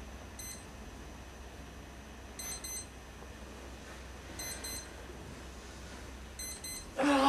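Digital alarm clock beeping: a pair of short, high beeps about every two seconds, over a quiet room. A loud voice cuts in right at the end.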